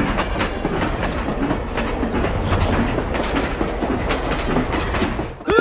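Train rolling along the track, a steady rumble with the clickety-clack of wheels over rail joints, cutting off suddenly just before the end.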